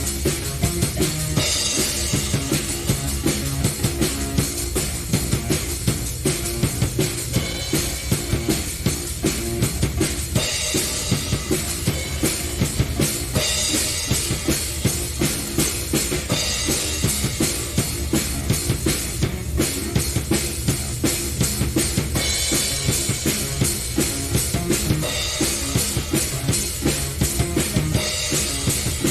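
Instrumental keyboard-prog jam: a drum kit with bass drum, snare and cymbals keeps a steady busy beat under keyboard lines.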